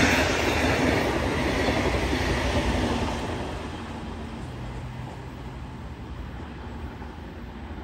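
Brightline passenger train passing close by, a loud rumble of wheels on rail that fades away over the first three or four seconds, then a quieter steady rumble.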